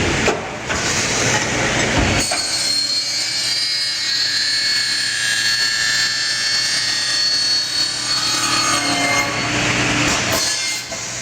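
Automatic 90-degree circular saw cutting an aluminum extrusion. A broad rushing noise for about two seconds gives way to the blade's high ringing whine of several tones, which lasts about eight seconds and fades near the end.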